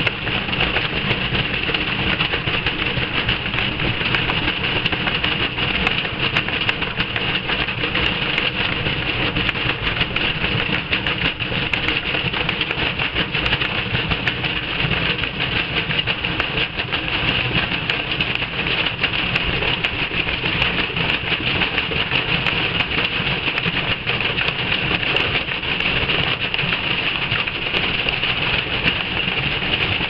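Front-loading washing machine running a spin with a brick in the drum. The unbalanced drum bangs and rattles continuously over a steady high motor whine and a low rumble as the machine shakes itself apart.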